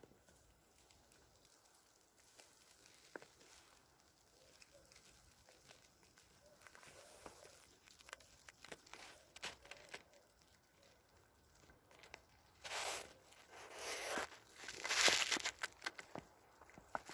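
Footsteps in fresh snow: faint at first, then loud crunching steps starting about three-quarters of the way in.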